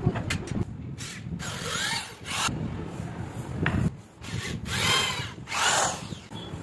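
Electric drill boring a small hole into a plywood board in three short bursts, its whine sliding up and down in pitch as the bit cuts.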